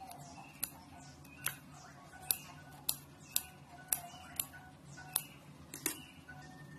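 Kitchen scissors snipping a green chilli into small pieces: about ten sharp snips, one every half second or so, over soft background music.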